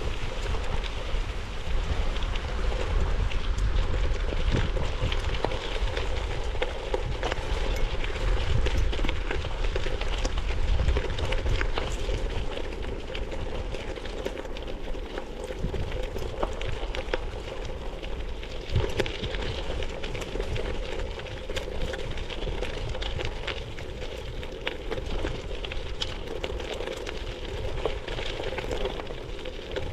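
Bicycle riding over a dirt farm path: steady crackling tyre noise with wind buffeting the microphone as a low rumble, a little louder in the first half.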